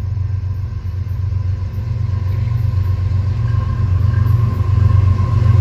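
Approaching diesel locomotive, Union Pacific 5275, its engine's low rumble growing steadily louder as it nears, with a faint steady whine rising above it in the second half.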